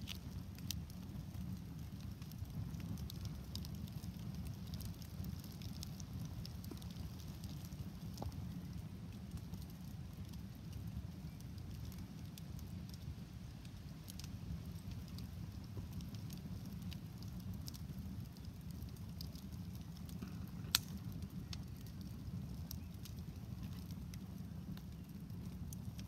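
Campfire burning shoes on a shoe rack: scattered crackles and pops over a steady low rumble, with one sharp pop louder than the rest about twenty seconds in.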